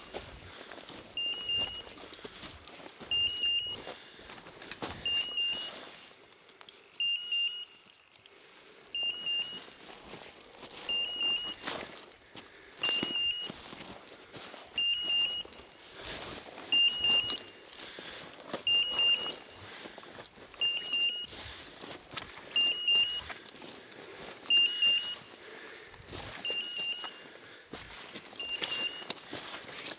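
Electronic beeper collar on an English setter sounding its point-mode signal, a short high beep repeated evenly about every two seconds: the sign that the dog is standing on point. Footsteps swish and crunch through dry rushes and grass between the beeps.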